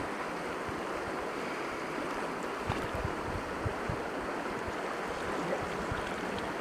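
Shallow stream flowing over riffles, a steady rushing, with a few light bumps of wind on the microphone.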